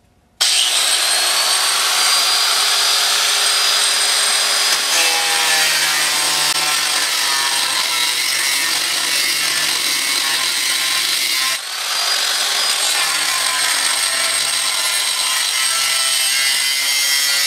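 Electric angle grinder with a cutoff wheel starting up about half a second in and cutting steadily into the car's steel side rail, with a constant high whine. Near two-thirds of the way through it briefly eases off and spins back up.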